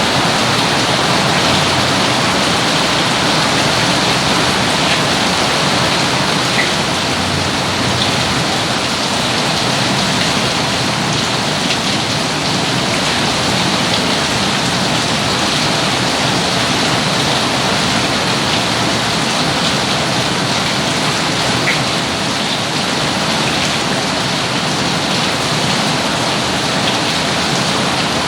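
Steady rain falling, an even, unbroken hiss of rain on surfaces.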